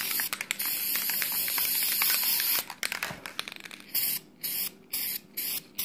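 Aerosol spray paint can spraying: one continuous hiss of about two and a half seconds, then, after a pause, about five short spritzes in quick succession.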